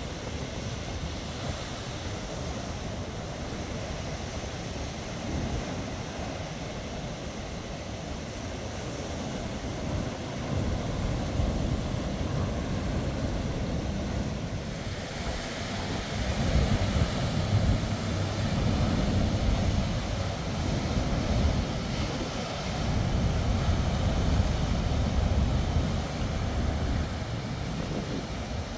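Ocean surf breaking and washing ashore, with wind rumbling on the microphone that grows louder and gustier from about halfway through.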